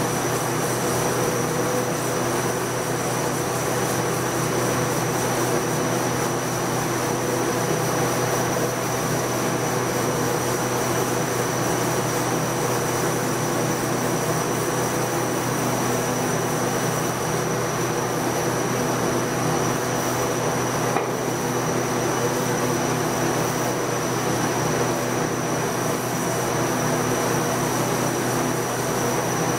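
Sandblaster nozzle blasting abrasive onto a glass panel, etching the bare glass around a liquid resist: a steady, unbroken hiss.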